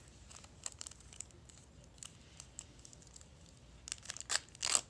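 Plastic packaging crinkling as it is handled, with faint scattered crackles and then a few louder crinkling, tearing strokes near the end.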